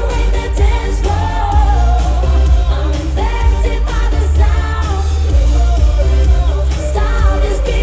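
Live eurodance music played loud through a concert PA, with a sung vocal line over a heavy, steady bass beat.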